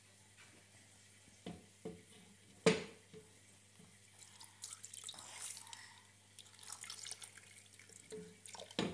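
Milk poured from a cup into a plastic blender jar over mango pieces, splashing and trickling from about four and a half seconds in. A few light knocks come before it, the sharpest near three seconds in.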